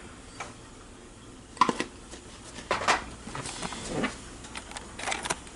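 A few knocks and clinks of kitchenware against a cooking pot, starting about a second and a half in, as dry ingredients for play-dough (flour, salt and cream of tartar) are dumped into it.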